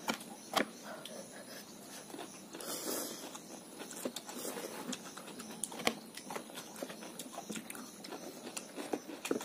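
Close-up eating sounds: instant noodles being slurped and food chewed, with scattered light clicks and taps of forks against bowls and plates.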